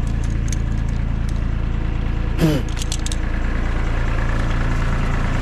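Kobelco mini excavator's diesel engine idling steadily just after a cold start at about −10 °C, left running to warm the hydraulic oil. About two and a half seconds in, a brief falling sound cuts across it.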